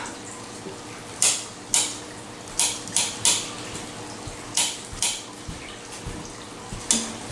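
Kitchen knife chopping on a cutting board: about eight separate, irregular chops.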